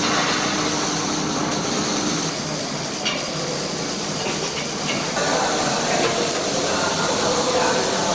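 Electric arc welding: a steady hiss and crackle from the arc, with a low hum that stops about two seconds in.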